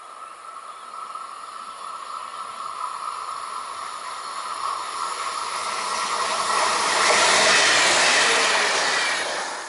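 Red regional passenger train approaching and passing close by at speed: a growing rush of wheel-on-rail noise, loudest about seven to nine seconds in, that drops away quickly at the end. A steady high tone runs under it from the start.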